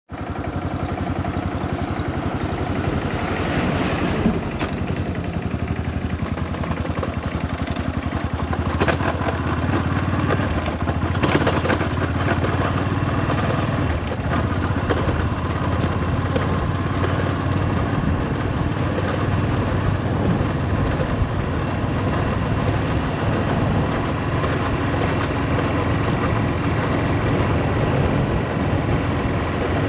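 Yamaha SRX400 single-cylinder four-stroke motorcycle engine running steadily, with a few sharp knocks in the first half. The bike makes abnormal noises, notably at half-clutch, which the owner puts down to a probable transmission failure and a slipping clutch.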